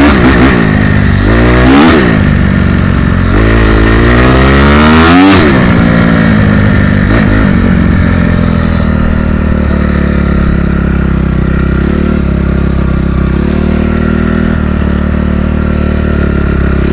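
Honda CRF250R's single-cylinder four-stroke engine revving up and back down twice in the first five seconds as the dirt bike accelerates, then holding a steady, lower running note.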